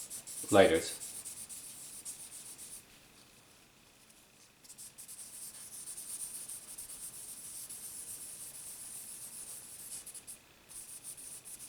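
Sandpaper rubbing back and forth on an old pocket knife during sanding, a steady scratchy hiss. It stops for about two seconds soon after the start and again briefly near the end.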